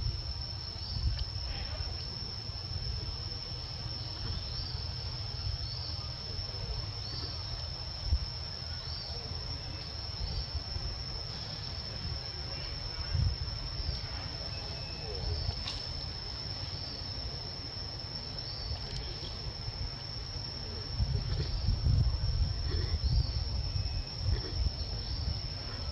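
Insects droning with one steady high-pitched tone, joined by a short repeated chirp about once a second. A low rumble runs underneath and grows louder near the end.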